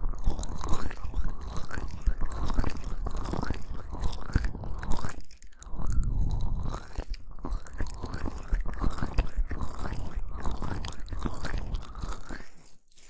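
Hands rubbing and cupping the silicone ears of a binaural ear-shaped microphone in an oil-massage motion, giving close, crackly friction sounds in repeated strokes, with brief pauses about five seconds in and near the end.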